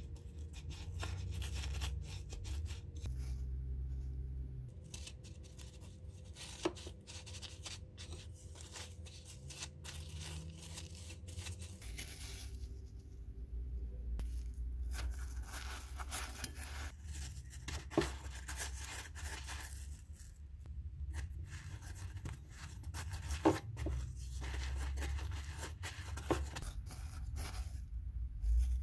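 Cinnamon sugar crunching and rasping on a plate as fried donuts are rolled and pressed into it, with a few sharp clicks along the way and a low steady hum underneath.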